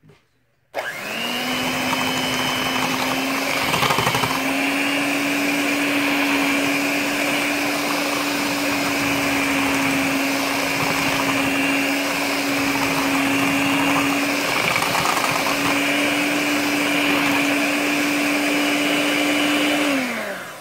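Handheld electric whisk whipping softened mango butter, shea butter and coconut oil in a plastic tub. It runs as a steady, loud motor whine that starts about a second in, steps up slightly in pitch around four seconds in, and winds down as it is switched off near the end.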